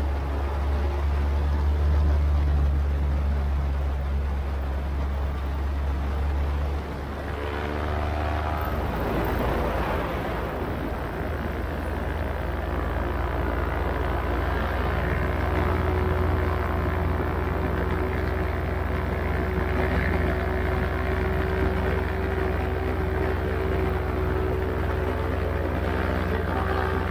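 Paramotor engine and propeller running steadily in flight, a constant drone with a deep hum, mixed with wind noise. About eight seconds in, the drone dips briefly and its pitch slides before it settles again.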